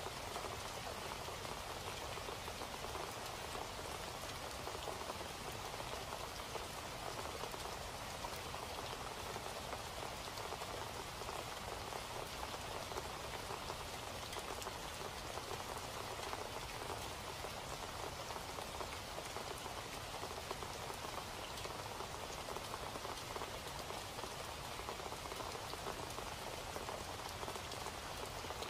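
Steady rain falling, an even patter of drops that does not change.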